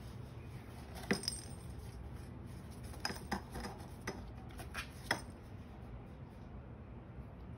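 Kitten pawing at toy balls inside a corrugated cardboard scratcher: a string of about seven light clicks and clinks with a brief high ring, a pair about a second in and a cluster between three and five seconds in.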